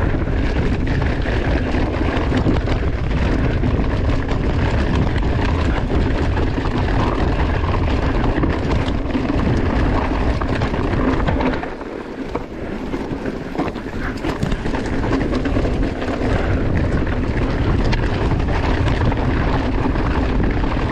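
Wind buffeting the microphone of a mountain bike rider, with the steady rush of riding along a trail. The noise dips for a couple of seconds about halfway through, then comes back.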